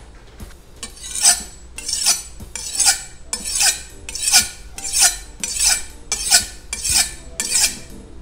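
A chef's knife being sharpened: ten even, swishing strokes of the blade, one about every 0.7 s, starting about a second in.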